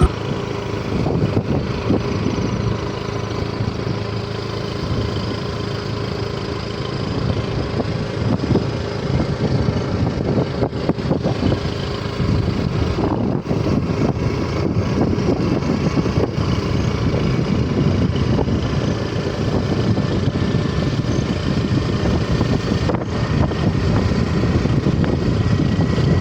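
A motor vehicle's engine running steadily during a ride, with road and wind noise.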